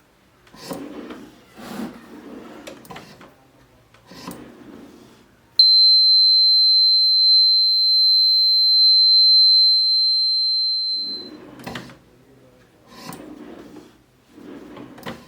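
Electronic buzzer sounding one continuous high-pitched beep for about five and a half seconds, starting about five seconds in and cutting off suddenly. Softer irregular handling sounds come before and after it.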